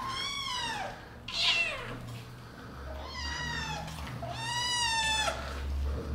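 Domestic cats meowing, about four times. Each meow rises and then falls in pitch, and the last two are the longest.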